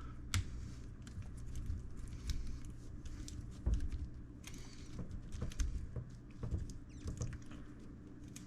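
Faint scattered clicks, taps and short scrapes of small plastic and metal parts being handled as a shock is worked back onto its mount on a 1/10 scale RC crawler, over a steady low hum.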